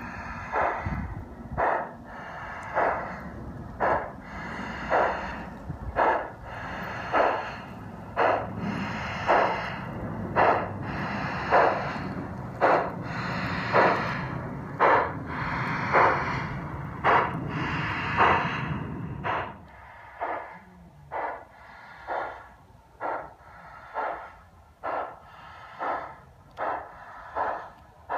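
G-scale LGB model Mallet steam locomotive chuffing from its built-in sound unit, about one chuff a second, over the low rumble of its running gear on the track. The rumble drops away about two-thirds of the way through while the chuffs go on, coming a little quicker near the end.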